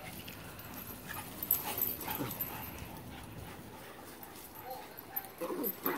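Several dogs making short vocal sounds that bend in pitch as they play-wrestle. There is a cluster of them about a second and a half in, and another near the end.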